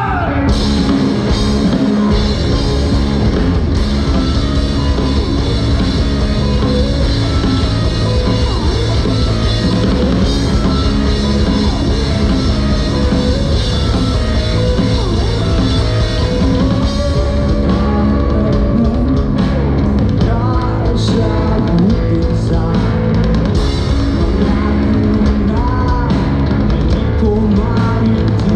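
Live rock band playing a song: drum kit and electric guitar, with a singer's voice over them.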